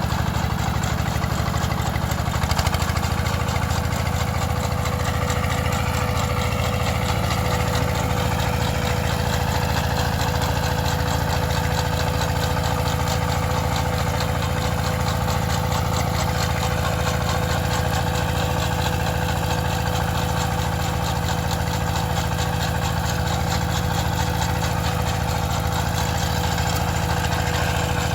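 Farm machine's engine running steadily, its pitch stepping up slightly about two and a half seconds in.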